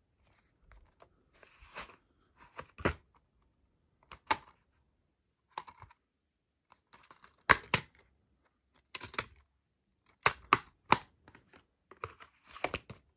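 A plastic DVD case and its cardboard slipcover being handled: a string of sharp clicks and taps with short scraping rustles between them, the loudest clicks coming in quick pairs past the middle and toward the end.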